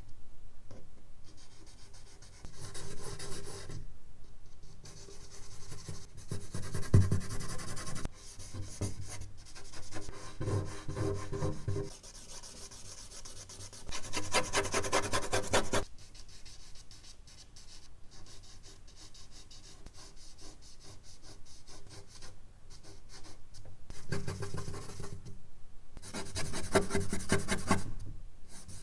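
Charcoal scraping across medium-surface drawing paper in bursts of quick strokes, alternating with a hand and fingers rubbing the paper to blend the charcoal. The bursts last one to four seconds and are separated by quieter pauses.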